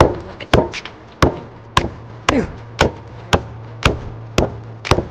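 A heavy bone cleaver chopping into beef bone on a wooden chopping block: about ten hard blows, roughly two a second, a few leaving a short ring.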